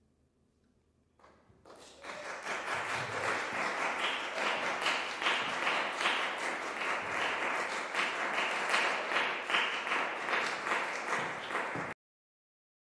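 Audience applauding, starting about a second in and cutting off suddenly near the end.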